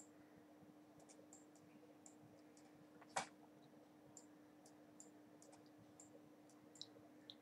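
Near silence with faint, scattered small clicks and one sharper click about three seconds in, over a faint steady low hum.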